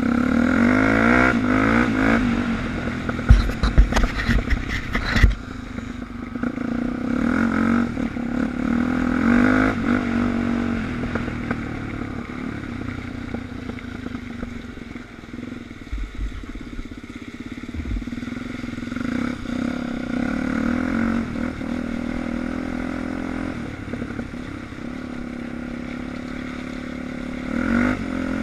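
Suzuki DR350's single-cylinder four-stroke engine heard from on board while riding, its speed rising and falling with the throttle. A run of knocks and rattles comes a few seconds in, and two more single knocks come near the middle.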